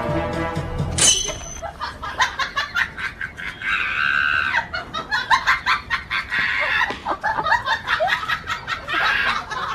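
Music that stops about a second in, then chickens squawking and clucking in repeated bursts, with one longer squawk near the middle, as they scuffle with a dog, among many short scuffling and flapping noises.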